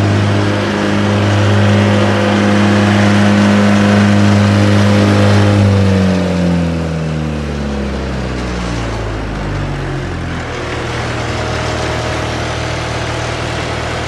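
GreenMech fast-tow wood chipper's engine running steadily at high speed, then winding down over a few seconds about halfway through and settling into a steady, lower-pitched idle.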